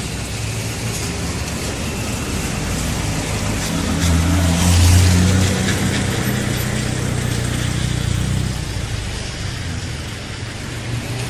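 A motor vehicle engine runs with a low hum that swells about four seconds in and then eases off, over a steady wash of traffic noise.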